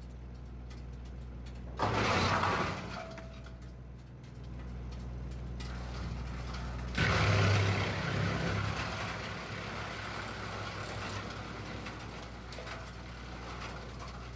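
Tractor-mounted PTO wood chipper running with the tractor engine's steady hum, chipping green branches. It rises to a loud grinding surge twice, briefly about two seconds in and again about seven seconds in, the second tapering off over several seconds.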